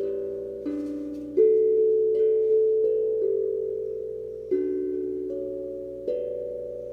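Steel tongue drum played slowly by hand: about six notes struck, each ringing on and overlapping the next, the loudest about a second and a half in.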